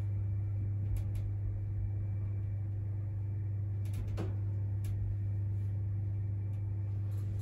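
Steady low hum of an elevator car, with a few faint clicks about a second in and around four seconds in.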